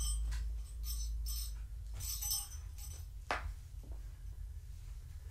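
Small bells jingling in short, scattered bursts over a low steady hum, with one sharp tick about three seconds in.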